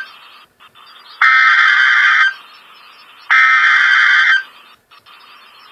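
Emergency Alert System SAME digital data bursts: two buzzing bursts of about a second each, about two seconds apart, the coded header that marks an alert message on the broadcast.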